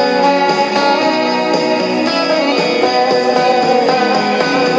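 Ibanez electric guitar playing a lead solo with bent notes, over the song's backing music.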